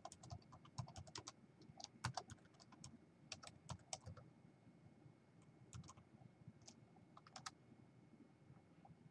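Faint typing on a computer keyboard: quick runs of keystrokes for the first four seconds or so, then a few scattered keystrokes.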